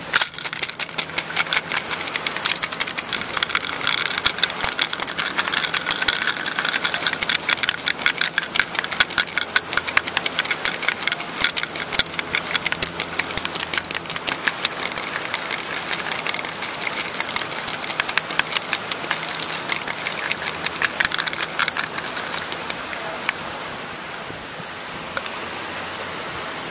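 Small plastic pieces rattling and clicking against each other and the walls of a clear plastic jar as it is shaken, many clicks a second. This is a self-assembly demonstration: the tumbling pieces join up into a ball. The rattling thins out over the last few seconds.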